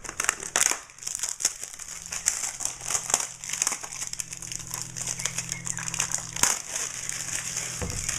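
Packaging being opened and crumpled by hand: a continuous run of irregular crinkling and crackling as a boxed part is unwrapped.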